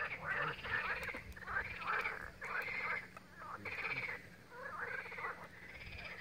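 Animal calls in a run of short pulsed bursts, each about half a second long, with a brief pause about halfway through.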